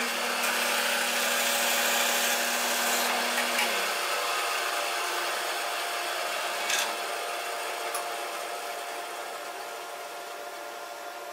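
Laguna bandsaw running and sawing through a block of wood on a sliding jig carriage, played back at twice normal speed. A low hum under the saw noise drops out about four seconds in, and the sound then grows gradually quieter.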